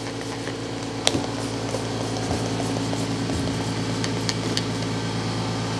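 A California Air Tools quiet electric air compressor runs with a steady hum. There is a sharp click about a second in and a few light ticks later.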